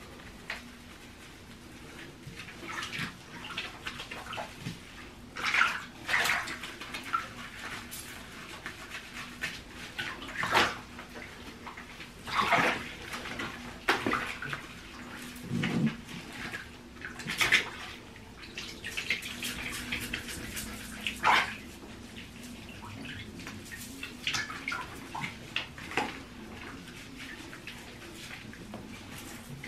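A small dog being bathed in a tub: short, irregular whines and whimpers from the unhappy dog, over water sloshing and splashing as hands scrub its wet coat.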